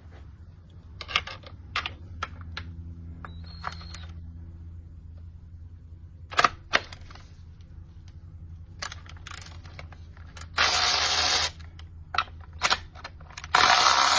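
Handling clicks and knocks from a 12-volt cordless 3/8-inch drive electric ratchet wrench, then its motor running twice near the end, each run about a second long, the second starting about a second and a half after the first.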